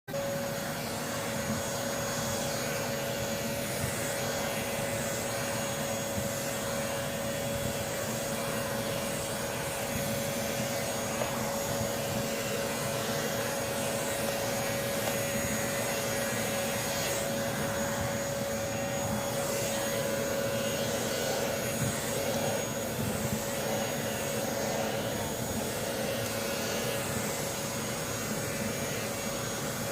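Pet-grooming hair clipper with built-in vacuum suction running steadily: an even suction rush with a steady hum and a faint high whine.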